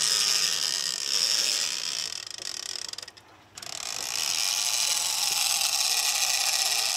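Conventional big-game fishing reel's clicker ratchet buzzing fast as line pays off the spool. It slows and stops about three seconds in, then starts again half a second later and keeps buzzing steadily.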